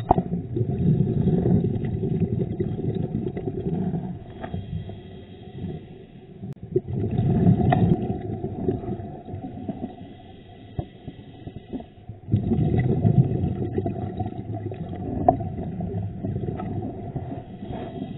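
Scuba diver's exhaled bubbles rumbling and gurgling past an underwater camera, in four surges a few seconds apart with the breaths, with quieter gaps between.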